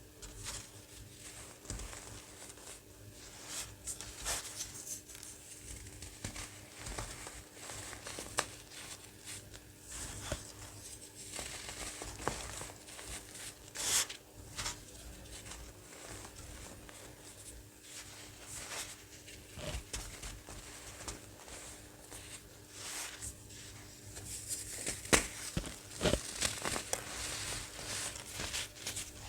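Dried baking soda chunks being crushed, giving irregular crisp crunches and crumbling crackles, with a denser run of crunches near the end.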